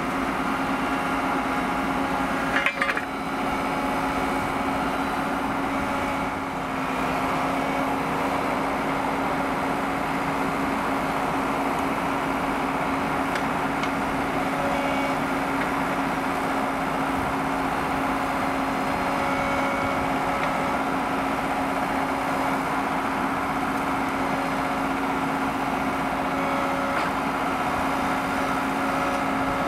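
Diesel engine of a road-rail excavator idling with a steady, unchanging hum. A single clank about three seconds in.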